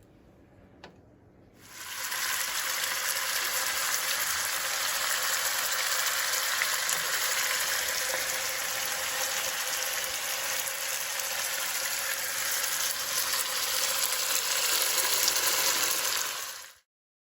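Spotted bass fillets frying in hot olive oil in a pan, a steady loud sizzle that starts up about a second and a half in and cuts off abruptly near the end.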